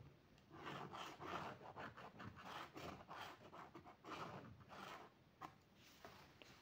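Pen scratching on paper in a series of short strokes as a curved line is drawn along a plastic French curve ruler.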